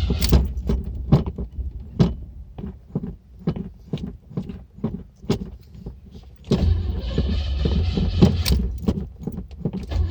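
Flooded Cadillac engine struggling: about six seconds of irregular pops and coughs, then a steadier run picks up again near the end. The rough, uneven firing is the sign of a fuel-flooded engine.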